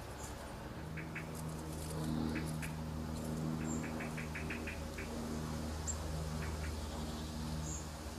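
Shrew twittering: short, high-pitched squeaks, often in quick runs of several a second, over a steady low hum.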